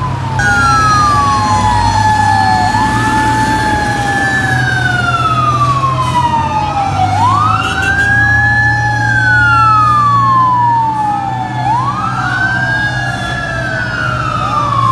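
Fire engine sirens wailing, two or more at once, each rising and then slowly falling in pitch in a cycle of about four to five seconds. A steady low engine drone runs underneath.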